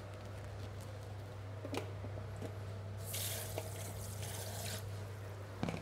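Kitchen mixer tap running for about two seconds, water splashing into a plastic colander as food is rinsed in it by hand. A few light clicks and knocks come before and after, over a steady low hum.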